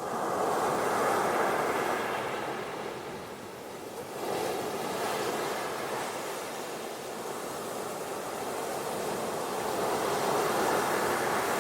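Ocean surf washing onto a beach in successive waves: one swell right at the start, another about four seconds in, and a third building near the end.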